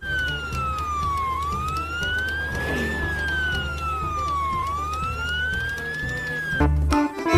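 A siren wailing, its pitch falling and rising slowly in long sweeps about two and a half times before it stops near the end, over a steady low hum.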